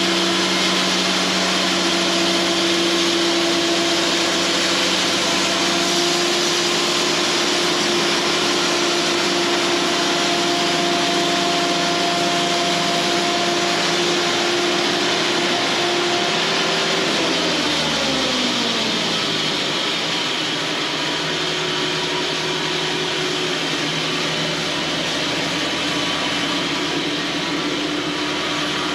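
Cooks AC36 band sawmill running. Its steady pitch drops over about two seconds some 17 seconds in, as something in the mill spins down, while a steady running noise carries on.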